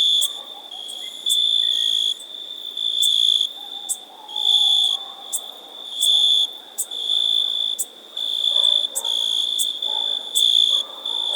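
Meadow insects chirping: a high, steady trill repeated in pulses about once a second, each lasting around half a second or so.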